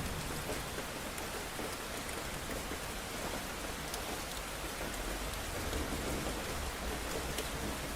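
Steady rain falling, an even hiss with scattered fine drop ticks; a low rumble builds underneath in the last few seconds.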